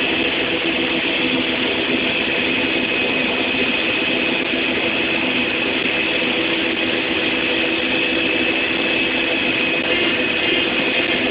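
John Deere harvest machinery running steadily: a constant engine and drive hum with a steady high-pitched whine over it.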